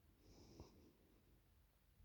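Near silence in the pause between snores, broken only by a sleeping woman's faint, short breath during the first second.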